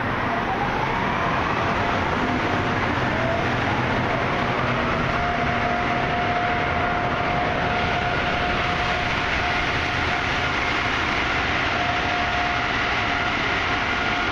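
Automatic car wash tunnel machinery running: motors whine up in pitch one after another and then hold a steady whine, over a loud, steady rushing noise.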